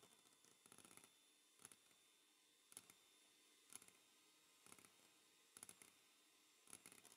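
Near silence, with faint short clicks about once a second.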